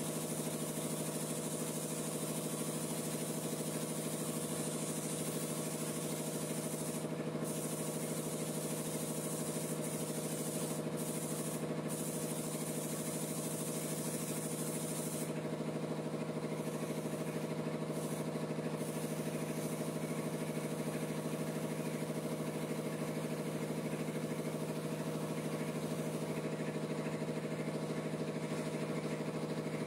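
A motor running steadily at one constant pitch, with the high hiss of compressed air from a paint spray gun over it; the hiss drops out briefly a few times as the trigger is let go.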